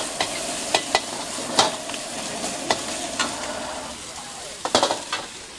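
Vegetables sizzling in a wok as a metal ladle stirs and scrapes them, with sharp clanks of the ladle against the wok every half second to second. The sizzle eases after about four seconds, and a quick clatter of metal knocks comes near the end.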